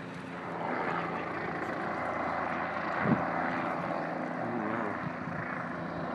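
A steady engine drone with a broad rushing noise, growing louder about half a second in.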